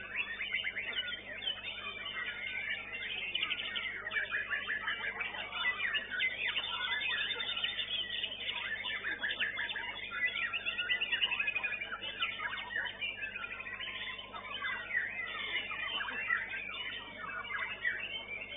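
White-rumped shamas (murai batu) singing at a songbird contest: a dense, steady stream of overlapping whistles, trills and fast chatter from several birds at once.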